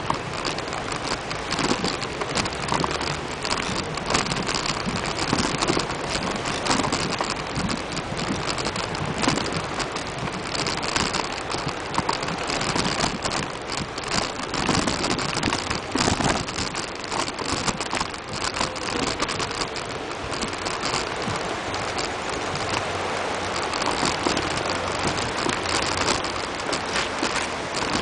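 Bicycle rolling over a rough dirt path strewn with stones: tyres crunching on gravel and the bike rattling over the bumps, a dense crackle with irregular knocks.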